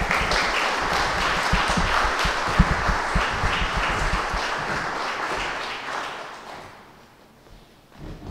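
Audience applauding, fading out about six seconds in.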